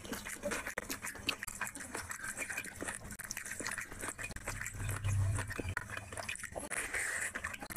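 A bare hand squishing and kneading rice with chicken curry on a plate: a run of small wet clicks and squelches, with a brief low rumble about five seconds in.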